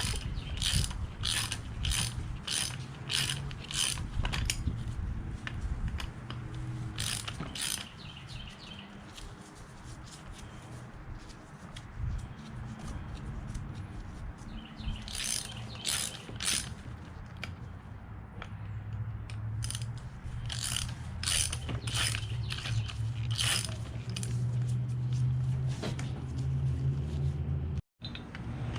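Hand ratchet wrench clicking as the head bolts of a Viair air compressor are backed out, in runs of sharp clicks about two a second, over a steady low hum.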